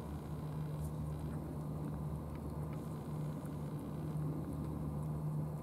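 Two cats eating wet food from plastic dishes, with faint small ticks of chewing and licking, over a steady low hum.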